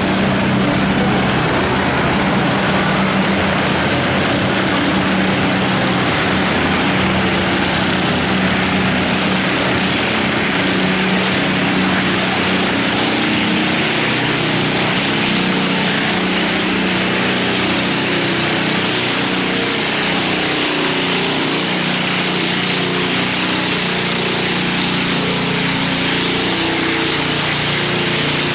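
Small garden tractor engine running steadily under load while it drags a weight-transfer sled along a dirt pulling track.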